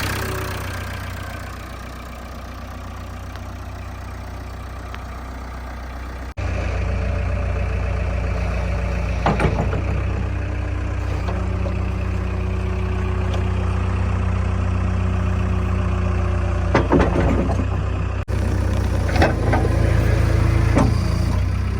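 Heavy diesel engine running steadily at a low speed, with a few sharp knocks and clanks. The sound jumps abruptly twice, about a third of the way in and again near the end.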